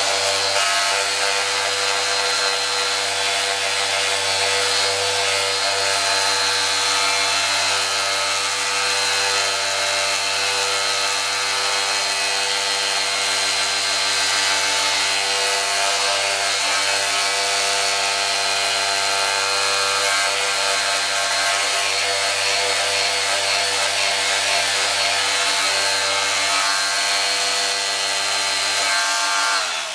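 Electric detail sander with a triangular pad running steadily, final-sanding dried Bondo body filler on a plastic motorcycle side cover: an even motor hum with the hiss of the abrasive over the filler. It switches off at the very end.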